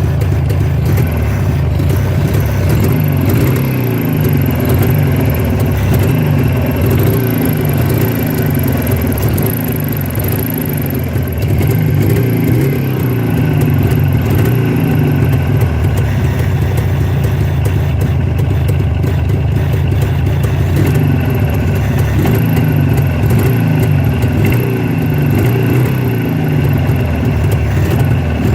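Jawa 638 motorcycle's two-stroke twin engine running, with a thin high-pitched whistle over it that fades in the middle and comes back.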